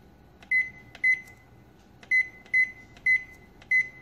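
Zojirushi NL-BT05 rice cooker's control panel beeping six times as its menu is stepped through button press by button press. Each beep is short and high-pitched, with a small click at its start, coming about every half second with one longer pause near the middle.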